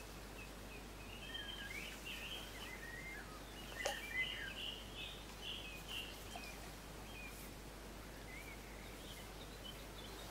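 Small birds singing in short, high chirping phrases over faint steady background noise, with two sharp clicks about four seconds in.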